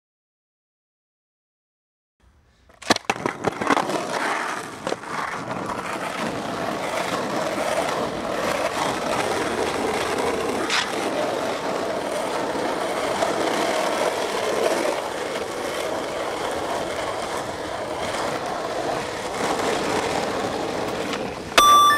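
After about two seconds of silence, a sharp clack about three seconds in, then skateboard wheels rolling steadily over smooth pavement with occasional small clicks as the rider pushes along.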